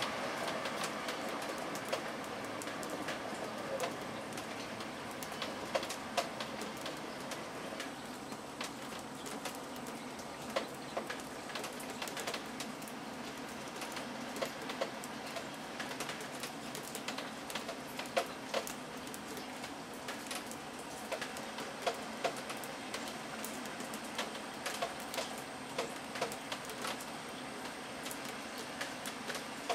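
Steady outdoor background hiss with many short ticks and chirps scattered through it.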